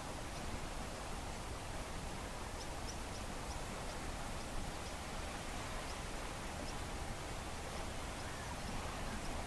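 Steady soft wash of the calm Baltic Sea, with a few faint, short high chirps now and then.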